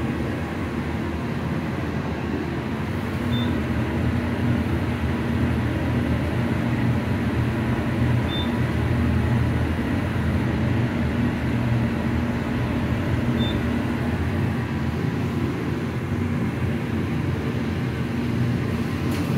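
Hydraulic elevator cab descending: a steady low rumble and hum from the ride and machinery. Three faint short high beeps sound about five seconds apart.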